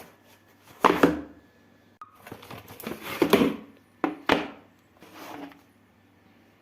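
Handling of packaging: two sharp knocks about a second in, a rustle of packaging, two more knocks about four seconds in, then a fainter rustle.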